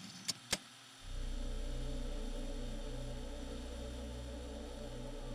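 A few sharp digital glitch clicks, then about a second in a low, steady drone of held tones starts: the intro music bed of a logo sting.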